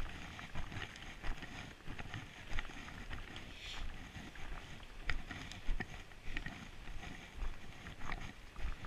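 Footsteps of a hiker walking on a packed-snow trail, a steady walking-pace run of soft thuds with sharp crunching clicks among them.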